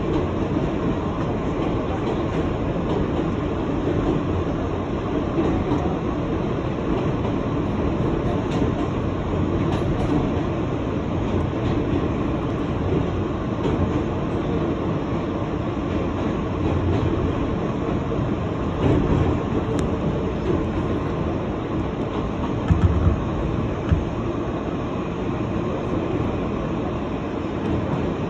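New York City subway F train running at express speed through the tunnel, heard from inside the rear car at its end door: a steady rumble of wheels on rail with scattered clicks. A few louder knocks come well past the middle.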